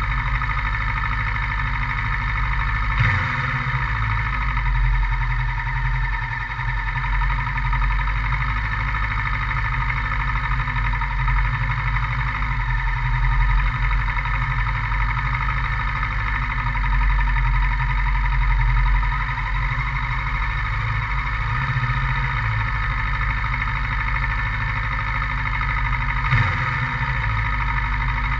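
Kawasaki Versys 650 parallel-twin motorcycle engine running steadily, its pitch barely changing. A short knock comes a few seconds in and another near the end.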